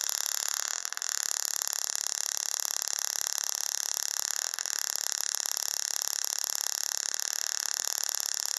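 Small tabletop Tesla coil arcing from its metal sphere topload to a hand-held screwdriver: a steady, rapid crackling hiss of the spark discharge.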